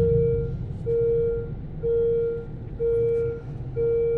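Railway level-crossing warning signal sounding a steady electronic beep-tone about once a second, the alarm that runs while the barriers are down for an approaching train. A low rumble of idling traffic lies underneath.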